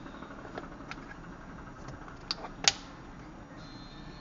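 A few scattered sharp clicks and clacks of 18650 lithium cells being handled in the floodlight's plastic battery case, the loudest about two and a half seconds in.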